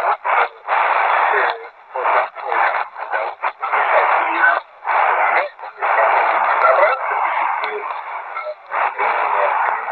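Russian-language speech from Radio Teos on 9920 kHz shortwave, played through the small speaker of an XHDATA D-219 pocket radio. The voice comes in phrases with short pauses and sounds thin, with no bass and no highs.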